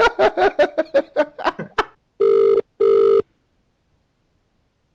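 British telephone ringing tone heard down the line: a double ring of two short steady beeps close together, as an outgoing call rings out waiting to be answered. Before it, about two seconds of rapid, choppy voice sound.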